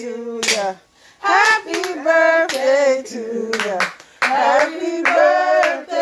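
High voices singing a rising and falling, drawn-out line, with scattered hand claps and a short pause about a second in.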